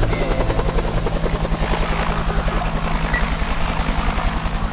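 DJI Phantom Vision Plus quadcopter's motors and propellers running with a steady, low hum.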